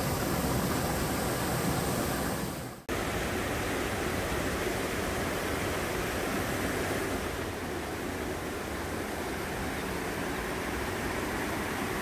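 Mountain stream water rushing steadily, first a small waterfall pouring into a pool, then the stream flowing over rocks. The sound drops out sharply for an instant about three seconds in and carries on, a little softer in the second half.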